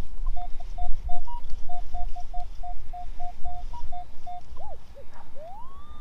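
Minelab Equinox 800 metal detector sounding a run of short beeps on one mid pitch, about three a second, with an occasional higher beep, as the coil passes over a buried target. Near the end a single tone rises in pitch and then holds steady, as in pinpoint mode homing in on the target.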